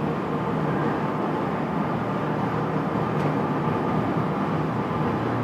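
Steady mechanical drone of heavy machinery in a steel fabrication shop, even and unchanging.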